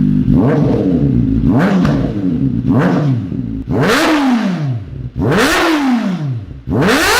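Kawasaki ZX-4RR's 399 cc inline-four engine being blipped: about five quick throttle stabs, each rev climbing sharply and falling back. A sixth rise starts near the end.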